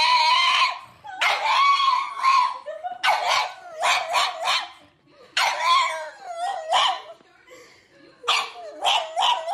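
Small black dog howling in long, high, wavering calls, in about five spells a second or so long with short gaps between them.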